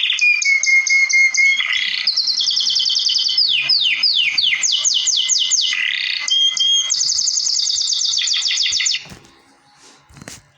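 Canary song: a continuous run of rapid trills and repeated quick downward-sweeping notes, switching to a new phrase every second or so. The song stops abruptly about nine seconds in, followed by a few faint clicks.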